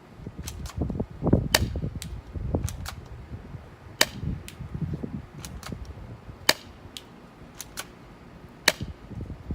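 Airsoft Hi-Capa pistol firing a series of single shots, each a sharp crack, at irregular intervals, with the loudest about every two and a half seconds and fainter clicks in between.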